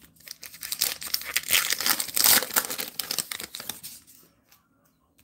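Topps Heritage baseball card pack being torn open by hand, its wrapper crinkling and ripping for about four seconds, loudest about halfway through, then stopping.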